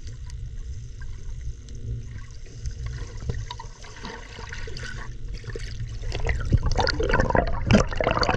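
Swimming pool water heard through a submerged camera: a muffled low rumble with sloshing, turning louder with splashing and bubbling crackles in the last couple of seconds as a swimmer moves close to the camera.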